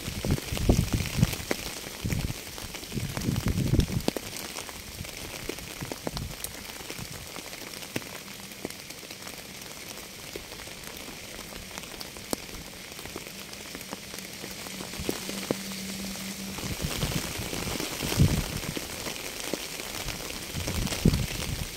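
Steady rain, a continuous high hiss with individual drops ticking through it. Low rumbles swell in for the first few seconds and again near the end.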